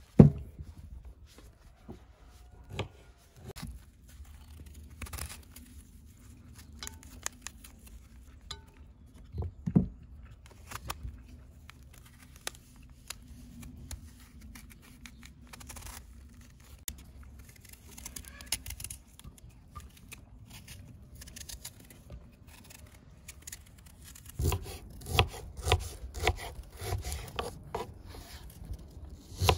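A kitchen knife peeling quinces: short scraping and cutting sounds of the blade through firm fruit and peel, with a sharp knock at the start and another about ten seconds in. From about 24 seconds in, the knife chops the quince on a wooden board in a quick run of thuds.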